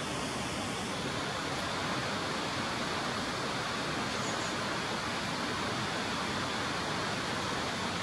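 A steady, even hiss of noise, unchanging in level.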